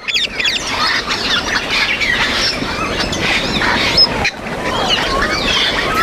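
Parrots squawking and whistling, many harsh calls and pitch-gliding whistles overlapping into a continuous chatter, with a brief lull a little after four seconds.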